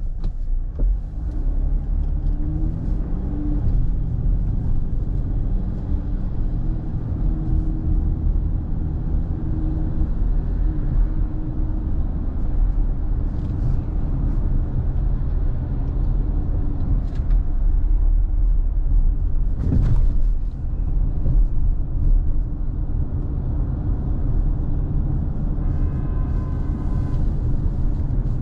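Car driving in city traffic: a steady low rumble of engine and road noise, with the engine's pitch rising and falling in the first half, a sharp click partway through, and a short higher-pitched tone near the end.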